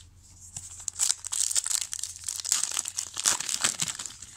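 Foil trading-card pack wrapper crinkling and tearing as it is pulled open by hand, a dense run of sharp crackles starting about a second in.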